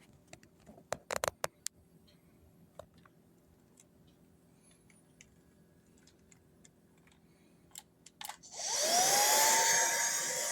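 A few sharp clicks, then near the end a Buture cordless vacuum cleaner switches on: its motor spins up with a rising whine and settles into a steady high-pitched running hiss.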